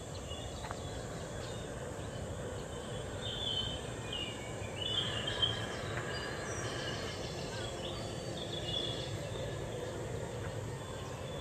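Outdoor garden ambience: birds chirping in short, high calls now and then over a steady low rumble.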